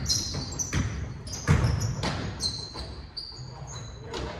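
A basketball bouncing on a hardwood gym floor several times during pickup play, each bounce echoing around the hall. Sneakers squeak sharply and high-pitched on the boards in between.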